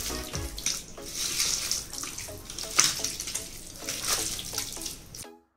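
Wet, uneven mixing sounds of a bare hand kneading raw chicken pieces in a yogurt, lemon-juice and spice marinade in a steel bowl. The sound cuts off suddenly near the end.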